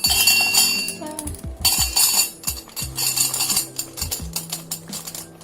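Dry pasta rattling and clinking into a vessel as it is poured in, in several bursts, over background music.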